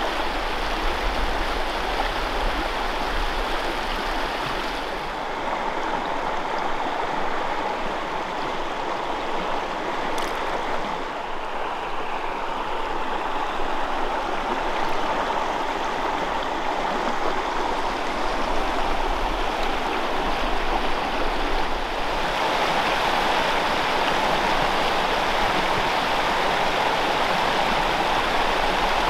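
Small freestone mountain stream running over rocks: a steady rush of water. The hiss dulls a little about five seconds in and brightens again about three-quarters of the way through.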